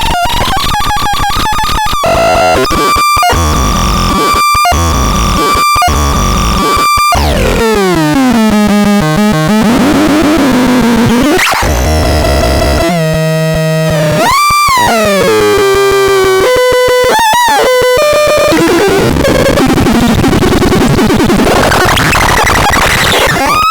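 Harsh electronic synthesizer noise: a buzzy held tone broken by sudden short dropouts, then a long falling pitch sweep, several rising-and-falling swoops, and gritty noise near the end.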